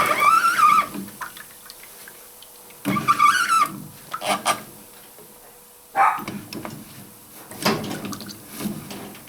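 Water splashing and gurgling in separate short bursts a second or two apart, with a wavering squeal at the start and again about three seconds in.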